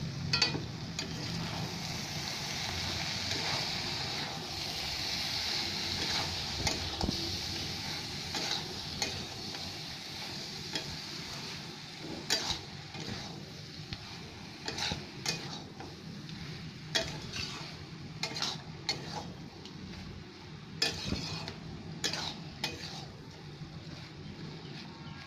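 Thick curry sizzling in a metal kadai as its last water cooks off. From about halfway, a spatula scrapes and knocks against the pan in quick irregular strokes as the curry is stirred.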